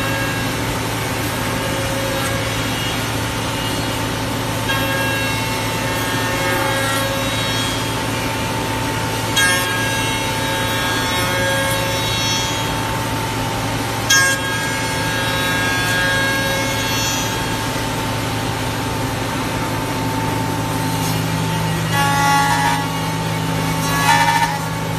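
Changfeng CF-MASTERT2-28 5-axis CNC router running its spindle with a steady whine over a constant machine hum. It is cutting a curved wooden workpiece, and the cutting comes in rasping bursts a few seconds long. Near the end the cutting turns choppier, with a few sharp knocks.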